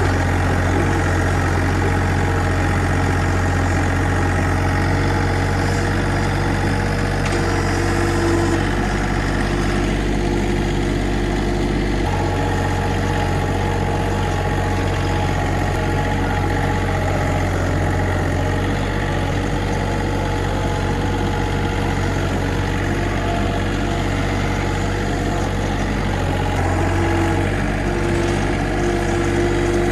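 Tractor engine idling steadily with a low hum. Its tone shifts slightly about 8 and 12 seconds in.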